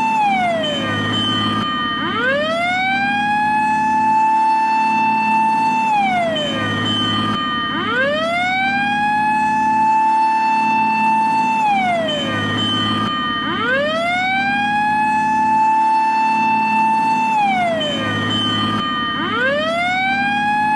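Japanese fire engine siren wailing in its fire-call pattern. The pitch swoops quickly up to a high tone, holds there for about four seconds, then slides down, repeating about every six seconds over a steady low hum.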